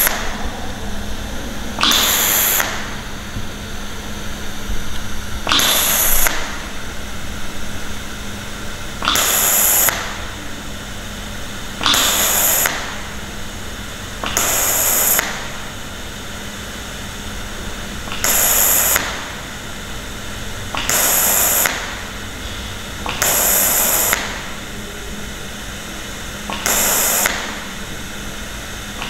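TIG welding arc on 2 mm steel at 90 A DC, struck over and over for tack welds: nine brief hissing bursts, each under a second long, about every three seconds. A steady low hum runs underneath.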